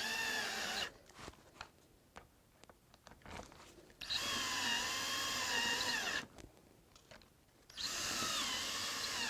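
Electric drill driving hinge screws: three spells of motor whine, each a second or two long, with the pitch wavering as it runs, and quiet gaps between.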